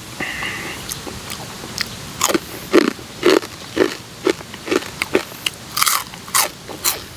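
A person chewing crunchy food, with about ten crisp crunches at roughly two a second from about two seconds in.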